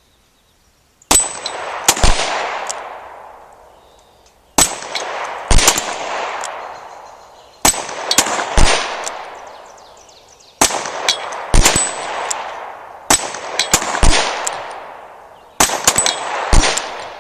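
.38 Special handgun fired six times, about three seconds apart, at spring-loaded steel reactive targets. Each shot is followed by a high ringing and a second sharp knock about a second later.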